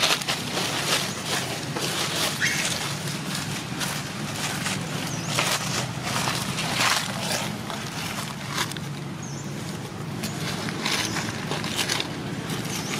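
Macaque tearing and chewing a green fruit amid dry leaves: irregular crisp rustles and crunches, over a steady low hum.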